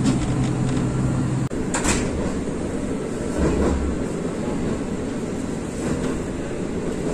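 Diesel train running on the line, heard from inside the carriage: a steady engine hum for the first second and a half, then the rumble of wheels on rail with a sharp knock about two seconds in and a duller thud a little later.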